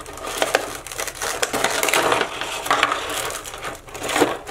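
Clear plastic blister packaging from a figure box crackling and crinkling as it is handled and lifted, a dense run of small sharp clicks and rustles with a louder crackle near the end.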